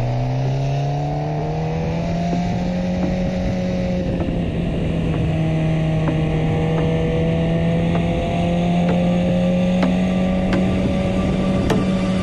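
Suzuki GSX-R inline-four with an Akrapovic exhaust pulling uphill. Its pitch rises over the first couple of seconds, holds, then climbs a little again about eight seconds in. Wind noise on the microphone runs underneath.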